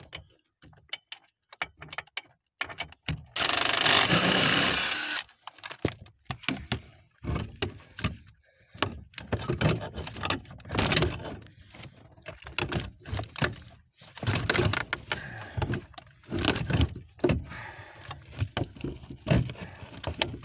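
Socket wrench and tools clinking and clattering on the steering column mounting bolts, with irregular knocks throughout. One loud, steady burst of noise lasts about two seconds, starting a little over three seconds in.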